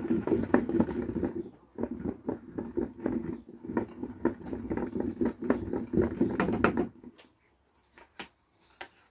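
Boilies rolling and rattling around inside a large plastic tub as it is swirled to coat them in powder: a dense run of quick knocks for about seven seconds, then it stops, with a few scattered taps near the end.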